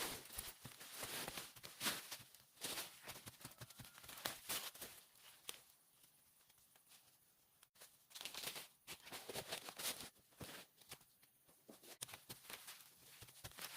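Irregular soft knocks, clicks and rustles of potatoes and soil being handled during a hand harvest, sparser in the middle.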